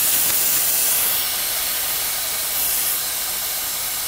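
Pressurized gas hissing out of an A/C system through the service port and gauge manifold. It is being bled down from about 200 to 150 psi, and the hiss eases about a second in, flares briefly, then eases again as the valve is worked.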